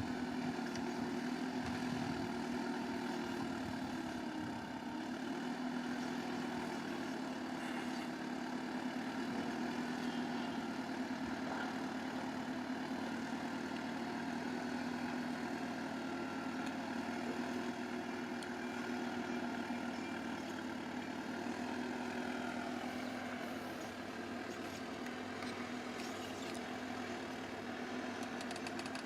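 Bulldozer's diesel engine running steadily as it works soil, its pitch gliding down a little about twenty-two seconds in as it eases off.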